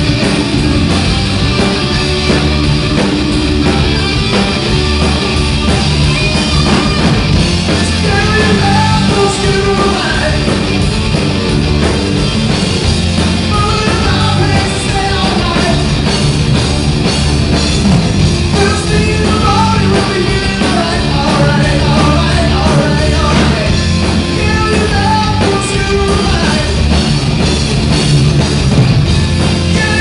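Live rock band playing loud: electric guitars over bass and drums, with a lead line bending in pitch through the middle.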